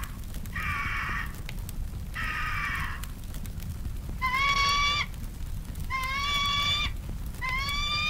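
Eagle cry sound effect: five separate screeching calls, each under a second. The first two are rough and hoarse; the last three are clearer and hold a steady pitch.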